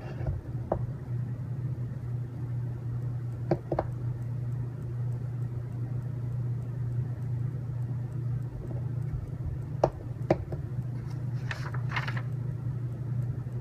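Steady low hum with a handful of sharp clicks and taps of small robot-kit parts and screws being handled, and a short rattle of parts near the end.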